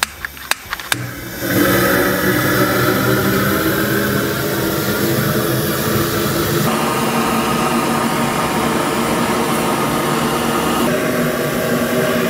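Handheld GrillGun propane torch: a few sharp clicks, then about a second and a half in the torch lights and runs with a loud, steady rushing jet of flame aimed into split firewood to light the fire.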